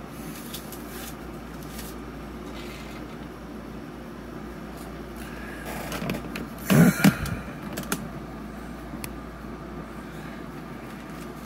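Steady hum of a window air conditioner, with light clicks and rustles as the rosin press is opened and the parchment pouch is handled. There is one short, louder noise about seven seconds in.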